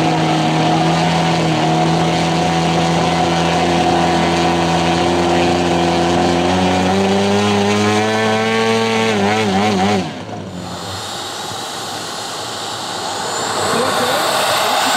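Piston engine of a large radio-controlled aerobatic model plane running steadily, then rising in pitch and wavering up and down as the throttle is worked, cut off abruptly about ten seconds in. After that a model jet turbine's hiss, with a thin high whine rising near the end as it spools up.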